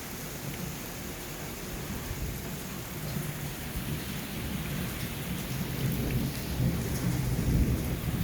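Heavy thunderstorm rain falling steadily as a dense hiss, over a low rumble that rises and falls and swells in the second half.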